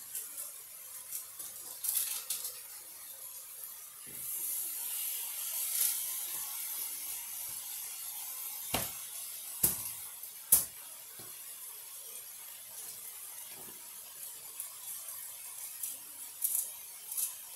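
Hamburger steaks sizzling in a hot skillet, the sizzle swelling about four seconds in. Three sharp knocks about a second apart near the middle.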